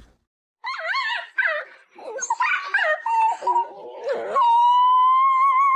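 A dog whining and yowling in a run of short cries that swoop up and down in pitch, then one long howl on a steady, slowly rising note from about four and a half seconds in.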